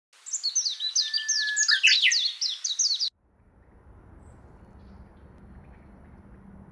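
Small birds chirping in a rapid run of quick falling chirps, with one short held whistle, cut off abruptly after about three seconds. After the cut there is only faint outdoor background noise with a low hum.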